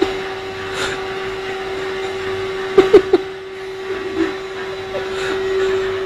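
Canister vacuum cleaner running with a steady whining hum. About three seconds in, a few short, loud pitched sounds cut in over it.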